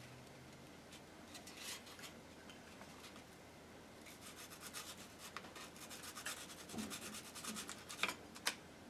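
Light hand-tool rubbing and scraping on a small metal jewellery piece: faint at first, then quick repeated strokes from about four seconds in, ending with two sharp clicks near the end.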